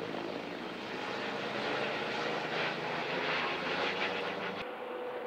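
Police helicopter flying over: steady turbine and rotor noise, louder in the middle. The low rumble cuts off abruptly near the end.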